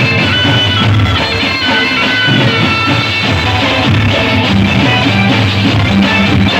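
Music playing loud and without a break: instruments holding melody notes over a repeating bass line.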